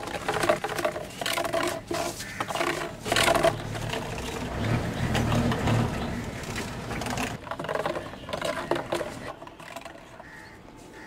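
Footsteps in sandals on a concrete street, with a run of clicking and scraping noises and a low rumble in the middle.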